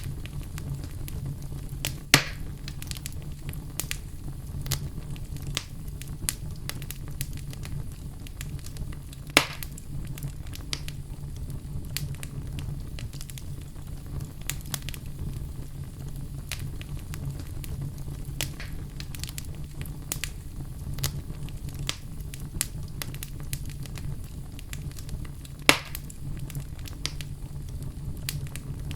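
Wood fire crackling in a fireplace, with a steady low rumble under many small snaps. Three louder sharp pops come about two seconds in, about nine seconds in and near the end.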